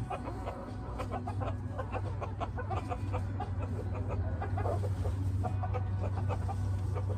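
Chickens clucking softly in a coop as they settle onto the roost, many short calls scattered throughout, over a steady low hum.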